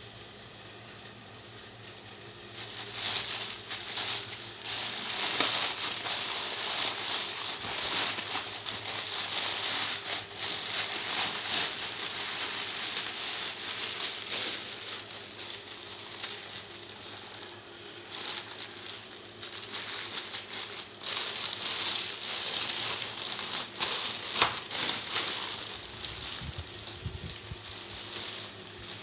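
Plastic parcel packaging around a steering-wheel cover being crinkled and handled as it is opened. The crinkling starts suddenly about two and a half seconds in, after a faint hum.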